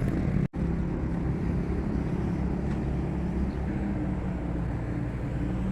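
Steady low outdoor rumble, with a faint engine-like hum in it, on a walking phone recording; the sound drops out completely for an instant about half a second in.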